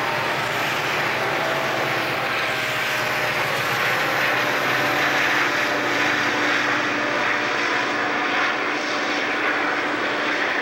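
Several Southern Pacific diesel-electric freight locomotives passing close by under power: a loud, steady engine drone with a few steady tones over it. The train's freight cars follow.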